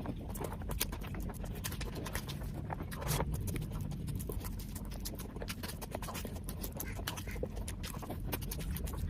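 Close-miked eating sounds: chewing and lip-smacking on saucy biryani, a steady run of quick wet clicks and smacks.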